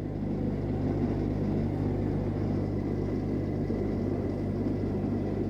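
LG Smart Inverter top-loading washing machine on its spin cycle: the drum spinning with a steady hum and rumble as the spin speed builds. The machine is running through the spin normally, its display fault cured by a control-board repair.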